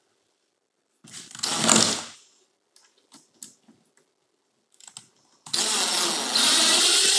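Cordless drill driving a screw through a metal blind mounting bracket: a short run about a second in, a few light clicks, then a longer steady run through the second half.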